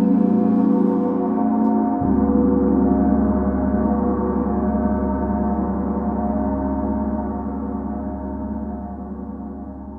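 A planetary gong ringing on with many overlapping steady tones, slowly dying away in the second half. A deep low hum comes in about two seconds in.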